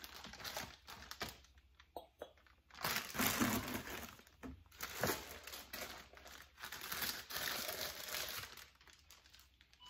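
Plastic wrap and a zip-top plastic bag crinkling in irregular bursts as a small pumpkin figurine is unwrapped and handled.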